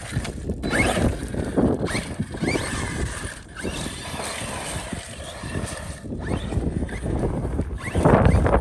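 Arrma Fireteam 6S RC car's brushless motor whining, rising in pitch again and again in short bursts as the car accelerates, over rough noise from the tyres and wind on the microphone.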